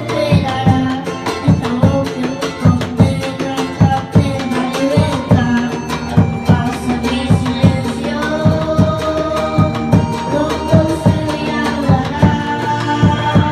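Music in a passage without sung words: a steady drum beat of about two to three strokes a second under a sustained melody line.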